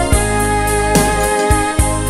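Background music led by an electric keyboard, with sustained notes over a strong bass line.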